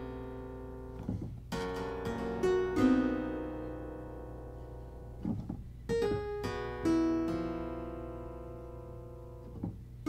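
Clavichord playing slow, sparse chords and intervals, each one struck and left to ring and fade away. New chords sound about a second and a half in, near three seconds, and again around six and seven seconds.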